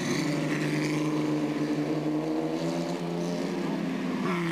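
Vintage single-seater racing car passing at speed, with a loud, steady engine note that shifts slightly in pitch about halfway through. Near the end a second car's engine takes over at a higher note.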